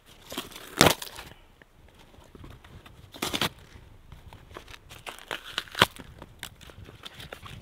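Split wood kindling handled and laid onto a small wood fire: three sharp wooden knocks or snaps about two and a half seconds apart, with softer rustling and small crackles between them.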